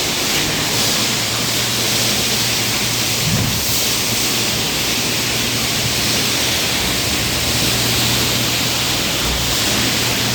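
Very large vacuum cleaner running steadily, a loud even rushing hiss of suction over a constant low motor hum.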